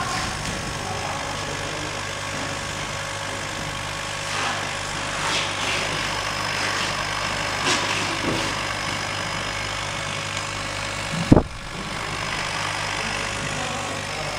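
CO2 laser cutting machine working on PVC carpet with its exhaust fan running: a steady hum and rush of air. A single low thump comes about 11 seconds in.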